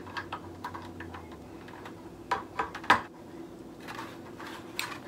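Irregular small clicks and knocks of plastic and metal parts as a ring light's mount is worked onto the top of its light-stand pole, with a few sharper knocks around the middle.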